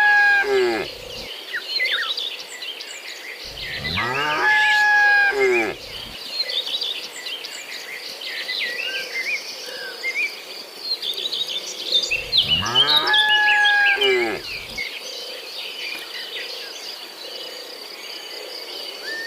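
Cattle mooing: three long, loud moos several seconds apart, the first ending about a second in. A steady high insect drone and scattered bird chirps run underneath.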